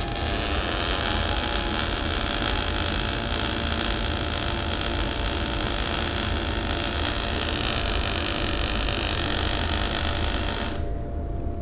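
MIG welding arc running steadily on steel plate for about eleven seconds, then stopping shortly before the end. The voltage and wire feed were turned up a little during the run.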